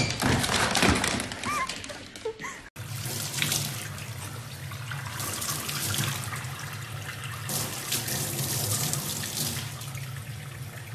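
Tap water running and splashing into a stainless-steel sink, a steady rush after a cut about two and a half seconds in. Before the cut there is a louder noisy burst with a couple of brief squeaky glides.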